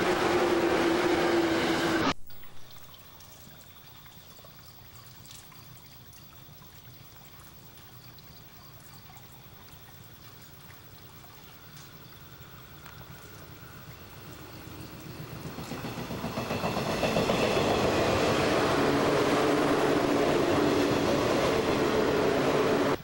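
A 415-series electric train approaching and passing close by: faint at first, growing over a few seconds to a loud, steady run-by of wheels on rail and motor hum through the last third. About two seconds in, the loud sound of an earlier train passing cuts off abruptly.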